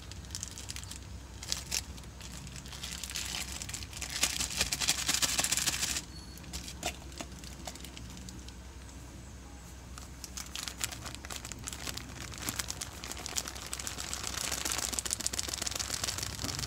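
Crinkling and rustling of a flour packet being handled and opened, with a louder hissing rustle for about two seconds that cuts off suddenly. Near the end come denser crinkling and clicks as the all-purpose flour is poured out.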